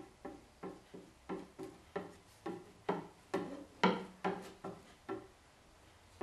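Steel putty knife scraping in quick strokes over a fiberglass cloth patch on a boat hull, spreading and squeegeeing the wet resin into the cloth: a run of short scrapes, about three a second, that stops about a second before the end.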